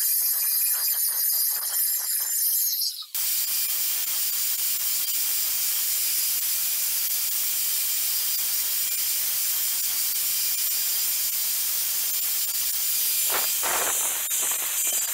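Milwaukee corded angle grinder with a diamond blade running at full speed, grinding the edge of a circular hole in a tile. A high whine over scraping for about three seconds, then a brief break and a steady hiss, with rougher, uneven grinding near the end.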